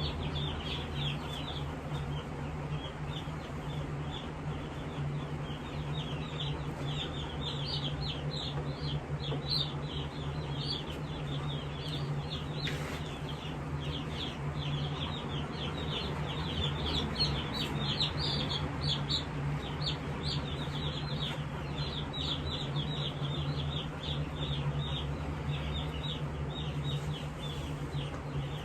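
A brood of Jumbo Cornish Cross meat chicks peeping nonstop, with many short, high cheeps overlapping, over the steady hum of a box fan.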